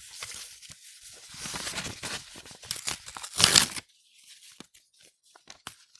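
A4 sheets of paper being torn by hand: uneven ripping that builds to one long, loud tear about three and a half seconds in, followed by small scattered rips and crinkles.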